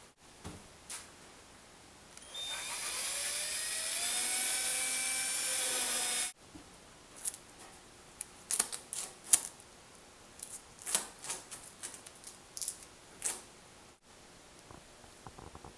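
A cordless drill runs for about four seconds, its motor whine rising in pitch as it spins up, then stops abruptly. Later come scattered sharp clicks and light knocks of wooden parts being handled and fitted together.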